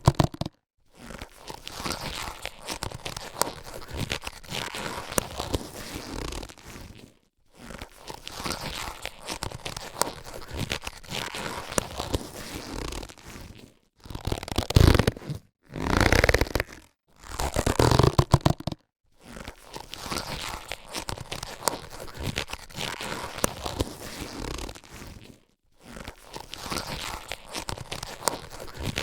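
Latex surgical gloves being handled: crackly rubbing and stretching of the latex in stretches of several seconds, broken by brief silent gaps, with louder bursts a little past the middle.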